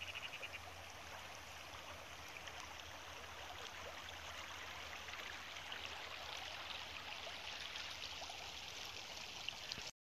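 Shallow river running over stones and gravel: a steady rush of flowing water with a fine patter of small splashes.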